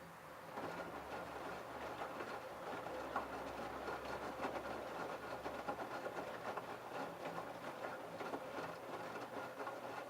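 LG F1222TD direct-drive washing machine running its babycare prewash. It starts up about half a second in, and its drum turns with a steady hum and a dense, irregular clatter.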